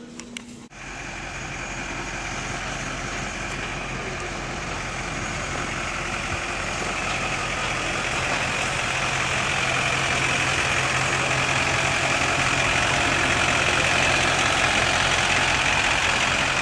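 Kodiak 4500 motorhome's truck engine idling steadily, growing gradually louder.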